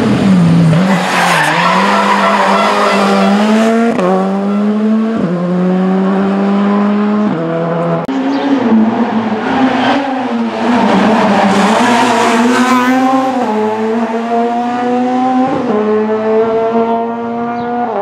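Rally cars at full throttle on a stage, engines revving hard and dropping in pitch at each quick upshift, several times over.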